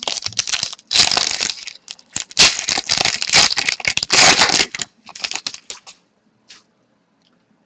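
Foil trading-card pack wrapper being torn open and crinkled for about five seconds, followed by a few light clicks.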